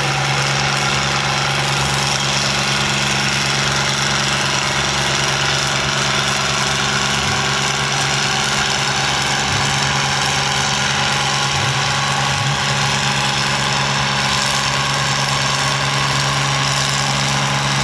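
Farmall tractor engine running steadily at a constant pitch under load, pulling a weight-transfer sled.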